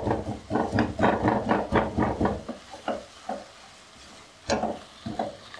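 Silicone spatula stirring and scraping masala scrambled egg around a non-stick wok. A quick run of strokes is followed by a few scattered ones, with a louder stroke near the end. The eggs fry with a light sizzle underneath.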